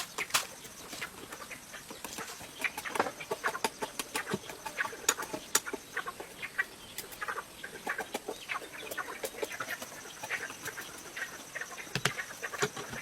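Chickens clucking, with scattered irregular clicks and knocks.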